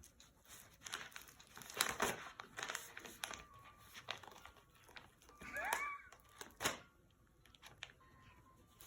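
Bag of catnip treats crinkling and rustling in irregular bursts as a cat paws and bites at it, with a short wavering tone about halfway through.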